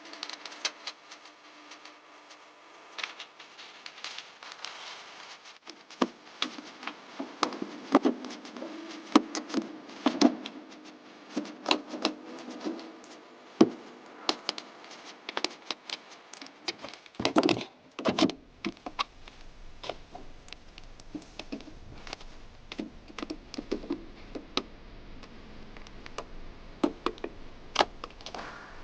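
Irregular clicks, clinks and knocks of hand tools and metal parts being handled during clutch and transmission work, over a faint low hum that comes and goes.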